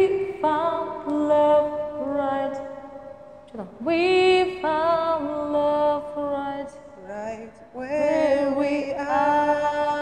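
A woman singing a slow, unaccompanied melody into a handheld microphone, holding long notes with short breaks between phrases, some of the notes wavering with vibrato.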